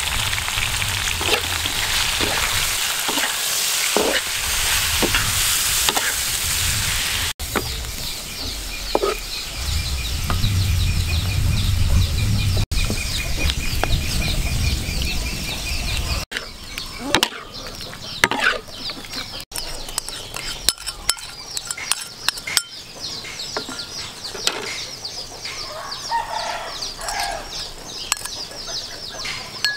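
Squid pieces and chopped garlic sizzling in hot oil in a wok, stirred and scraped with a metal spatula. The sizzle is strongest for the first several seconds and is cut short, leaving quieter frying, with chickens clucking in the background near the end.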